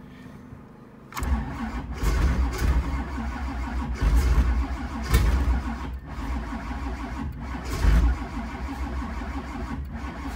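Starter motor cranking the cold, flooded 383 stroker small-block V8 of a 1985 Camaro Z28, starting about a second in and going on with a pulsing level and a few louder surges, without the engine catching. The battery is weakening under the long crank, which the owner takes for a battery that won't make it.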